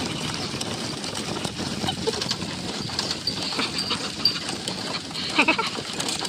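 Steady engine and road noise of a moving open-sided passenger vehicle, with a short gliding whine about five seconds in.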